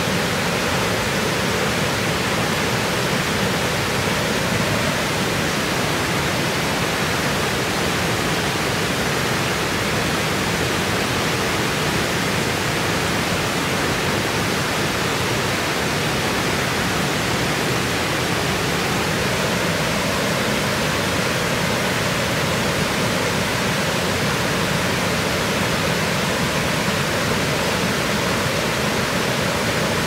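Water spilling over a low concrete weir, a steady rushing that does not change.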